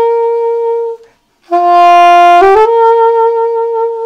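Soprano saxophone playing a diatonic glissando: a held G slides quickly up through A and B to a held C. The end of one such slide rings out and stops about a second in, and after a short pause the same G-to-C slide is played again.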